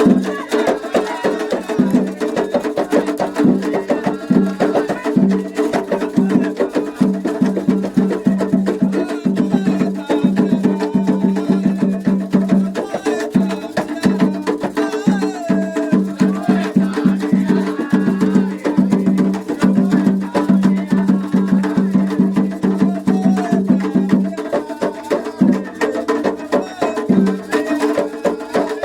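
Candomblé ritual music: atabaque hand drums playing a fast, steady rhythm with sharp clicking percussion over it, and voices singing.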